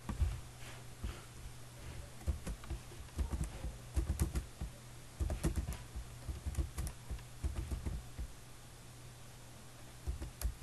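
Computer keyboard typing: short bursts of keystrokes as numbers are entered and Enter is pressed, cell after cell, over a faint steady low hum.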